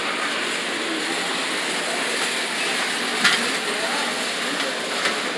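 Background hubbub of a busy store: a steady wash of noise with faint distant voices, broken by two short sharp clicks or knocks, one about three seconds in and a second near the end.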